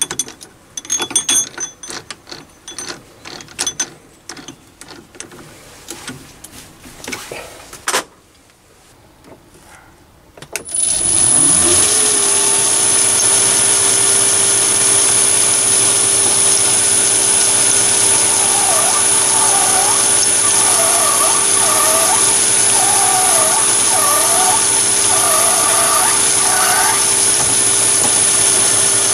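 Metal clicks and knocks of a chuck key tightening a four-jaw lathe chuck. About ten seconds in, the mini lathe's motor starts: it rises quickly in pitch, then runs at a steady speed with a hum and a high constant whine.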